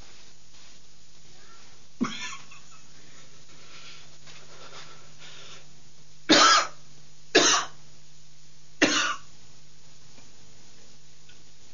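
A man's feigned coughing as he acts out being poisoned: a short throaty sound about two seconds in, then three loud, harsh coughs about a second apart.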